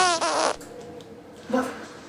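Fart sound effect, long and pitched with a wavering tone, breaking into a short wet sputter and ending about half a second in. A brief softer sound follows about a second later.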